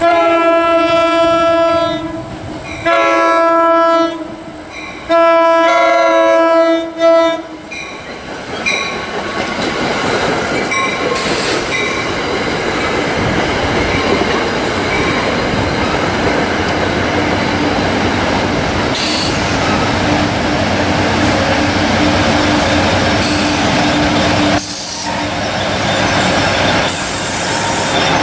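NJ Transit commuter train's chime horn sounding for the grade crossing: a blast, a shorter one, a long one and a brief toot in the first seven seconds. The train then passes close by at speed, its coaches' wheels rushing and clattering over the rails, with the locomotive pushing at the rear coming by at the end.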